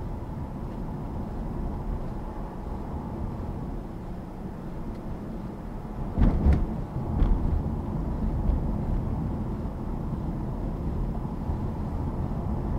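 Steady low rumble of a car driving on the road, with a few short thumps a little past halfway.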